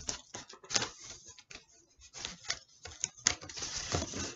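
Duct-taped corrugated cardboard being folded and pressed tight by hand: irregular crinkles, taps and scrapes, with a couple of sharper clicks about three seconds in.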